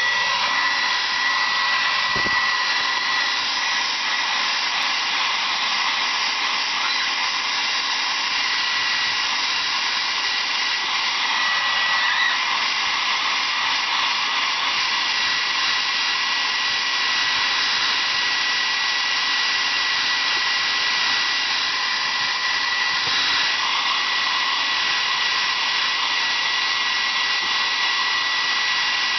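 Conair 1875 handheld hair dryer running steadily: a constant rush of blown air with a high, unchanging whine from its motor and fan.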